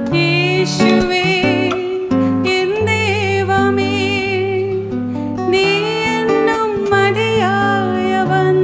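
A woman singing a melody, her held notes wavering in vibrato, to a plucked acoustic-electric guitar accompaniment.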